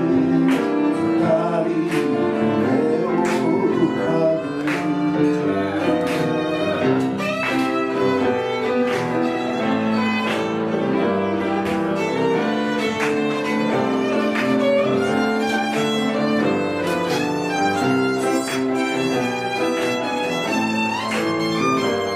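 Violin playing a sustained melody over acoustic guitar and piano accompaniment that keeps a steady beat.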